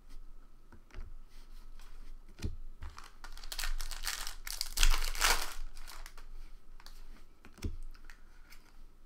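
A trading-card pack being torn open: a few small clicks and rustles, then a loud stretch of wrapper crinkling and tearing from about three to five and a half seconds in, then more light clicks as the card is handled.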